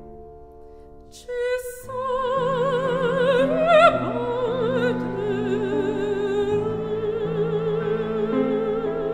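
Background music: quiet sustained accompaniment, then a high operatic voice with wide vibrato comes in about a second in and holds long notes over low held chords.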